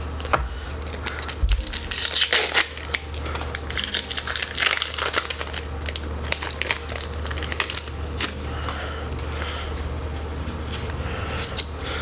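Foil wrapper of a Magic: The Gathering booster pack crinkling and crackling as it is opened and the cards are pulled out. The crinkling comes in irregular handfuls and is loudest about two seconds in and again near five seconds.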